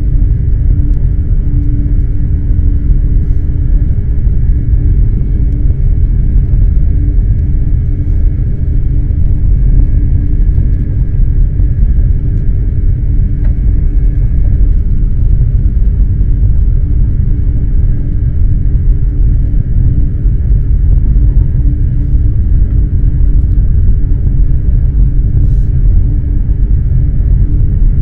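Eurostar high-speed electric train running, heard from inside the carriage: a loud, steady low rumble with a faint constant hum over it.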